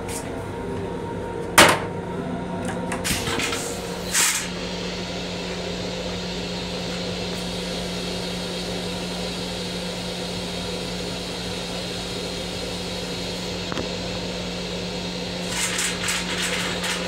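Steady low hum of an M7 railcar's restroom equipment and running gear. A sharp click comes about a second and a half in, a few brief clicks and rattles follow a couple of seconds later, and more come near the end.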